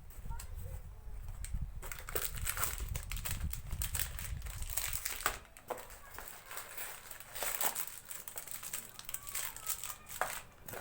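Plastic packaging crinkling and rustling in irregular bursts as it is handled and opened, with a low rumble in the first half.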